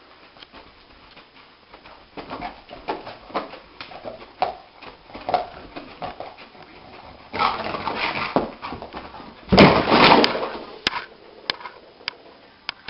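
A sleeping dog whimpering and yipping in a dream in a run of short, soft cries, while its legs scrabble against the carpet. About ten seconds in comes the loudest part, a bout of scuffling and thumps as it scrambles up.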